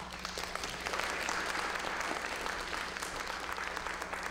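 Audience applauding, many hands clapping at once, starting suddenly at the end of a talk.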